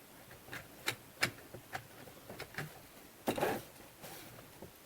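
Plastic parts of a cordless vacuum cleaner's housing being handled and fitted back together: scattered clicks and knocks, with a louder scrape about three seconds in.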